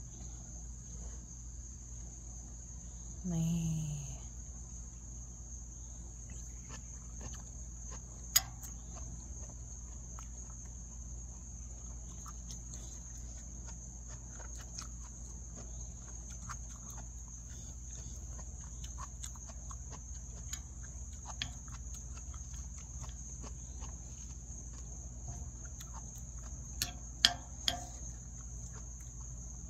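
Steady, high-pitched trilling of crickets in an unbroken chorus. A short hummed "mm" comes about three seconds in, and a metal spoon clinks against a ceramic bowl once near eight seconds and a few times near the end.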